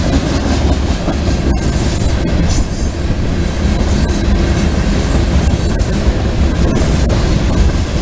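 Freight train hopper cars rolling past at close range: a steady heavy rumble of steel wheels on the rails with clacking over the rail joints. Brief high wheel squeals come through twice, a couple of seconds in and again near the end.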